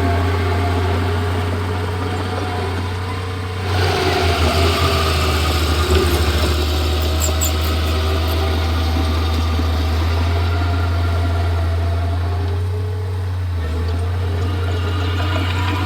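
Komatsu D31P crawler bulldozer's diesel engine running steadily, growing louder and fuller about four seconds in.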